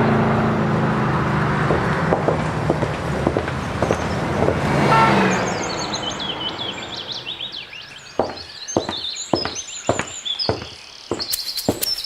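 A car engine running and fading away over the first half, then birds chirping. A series of sharp clicks starts about two-thirds of the way through.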